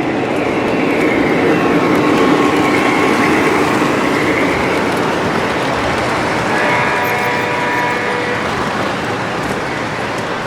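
Model trains running on a display layout: a steady rolling rumble and rattle of the trains, with faint steady tones sounding over it from about six seconds in.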